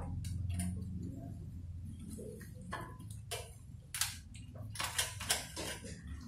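Kittens eating from a shallow metal tray: irregular sharp clicks and taps of chewing and of food against the tray, more frequent in the second half.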